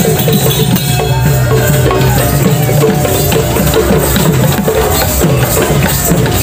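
Loud procession music with a steady, driving beat of drums and percussion.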